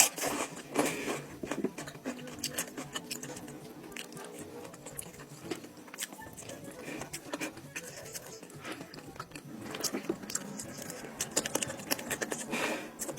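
Close-miked eating sounds: chewing and biting on goat-head meat, with many short clicks throughout.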